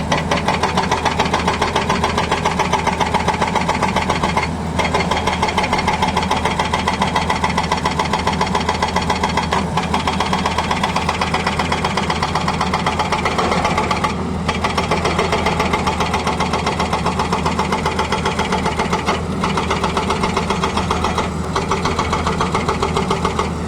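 Hydraulic breaker on a Tata Hitachi excavator hammering rapidly, stopping for a moment about every few seconds, over the steady run of the excavator's engine.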